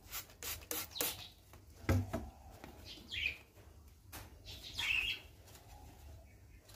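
Trigger spray bottle squirting four times in quick succession in the first second, followed by a low thump about two seconds in. A bird chirps twice later on.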